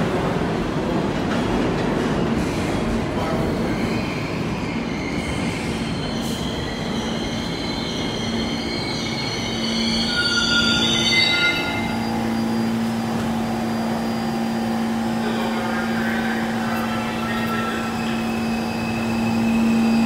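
R46 New York City subway train pulling into an underground station. Its wheels squeal in wavering high tones through the first half, then a steady hum takes over and grows louder as the cars come alongside near the end.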